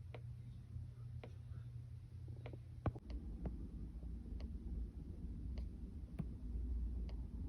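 2017 Toyota Highlander in park making a strange repeated clicking, one sharp click about every second, not quite evenly spaced, over a low steady hum. About three seconds in, a louder click comes as the hum changes.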